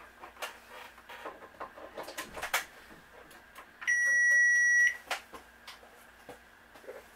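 KitchenAid KCM08OB drip coffee maker giving one long electronic beep of about a second as its control is pressed to start a brew cycle, with light taps and clicks from handling the machine before and after.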